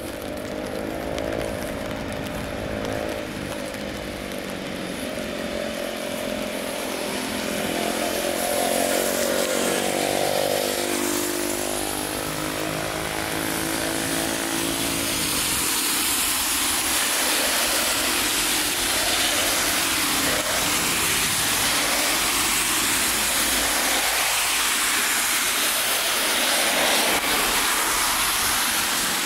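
Traffic on a wet road: a vehicle engine's hum, shifting in pitch, over the first half, then a steady hiss of tyres on wet tarmac.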